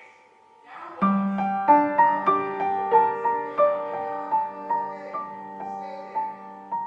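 Background piano music: after a brief near-silent gap, a slow melody of single struck notes begins about a second in, over a held low note.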